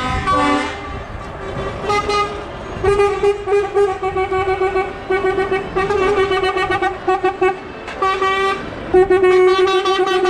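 Truck horns tooting in quick repeated short blasts of one steady pitch as convoy lorries pass, over the low running of their diesel engines. The honking starts in earnest about three seconds in and is loudest near the end.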